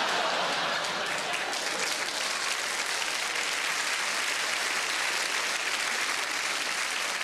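Large theatre audience applauding steadily after a punchline.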